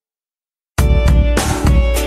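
Dead silence for under a second, then background music cuts in abruptly: a band track with a drum kit and guitar.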